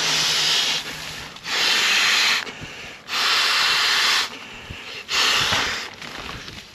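An inflatable sleeping pad being blown up by mouth: four long breaths blown hard into its valve, each about a second, with quieter breaths in between.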